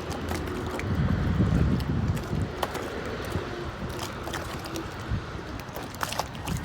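Wind buffeting the microphone in uneven low gusts, strongest about a second in, over a steady outdoor hiss with scattered light clicks.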